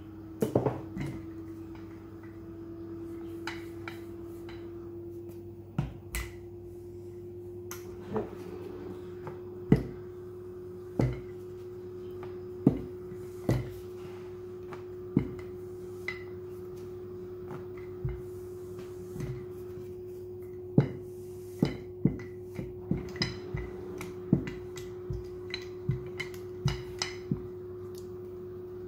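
Wooden rolling pin rolling out roti dough on a countertop, with irregular knocks as it bumps and is set down on the counter, coming faster near the end. A steady hum runs underneath.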